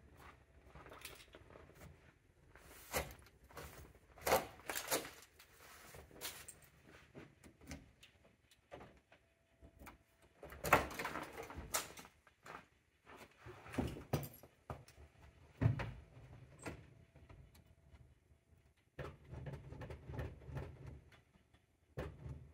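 Quiet, scattered knocks and scrapes of footsteps in snow and a 1965 Ford Thunderbird's driver's door being unlatched and swung open, then someone getting into the seat. The engine is not yet running.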